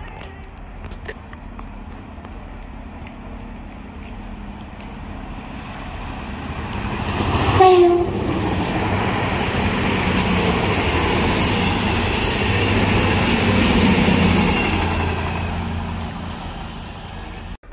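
A train approaches and passes close by, sounding a short horn blast about eight seconds in whose pitch drops as it goes by, followed by the long rumble of the cars rolling past, fading near the end.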